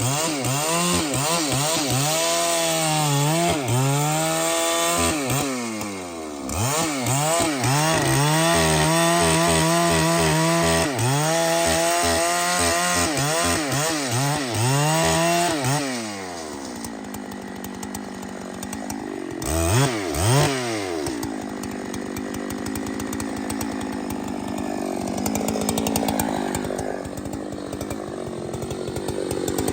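Large chainsaw cutting through wood, its engine pitch repeatedly sagging under load and climbing back. About 16 seconds in it eases off, gives two short revs, then runs lower and quieter.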